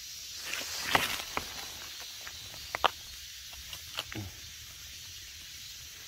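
A handful of sharp crackles and snaps from dry leaf litter and twigs being stepped on and brushed. The loudest come about a second in and near three seconds, over a steady faint hiss.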